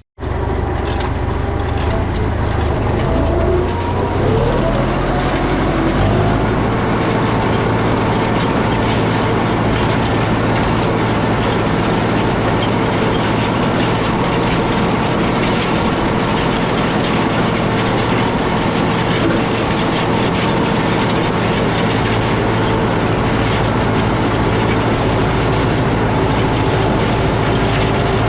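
Farm tractor engine running under load, its pitch rising a few seconds in, then holding steady.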